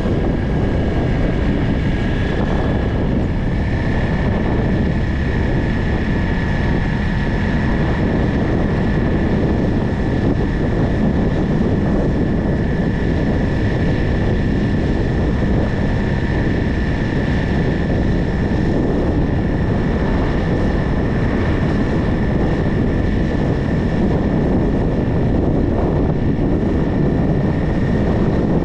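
A motor vehicle travelling at a steady speed: a constant engine drone with road and wind rush, and a steady high whine over it.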